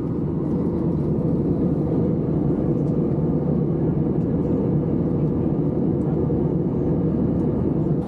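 Airliner cabin noise in flight: the steady low rush of the jet engines and airflow, heard from inside the cabin.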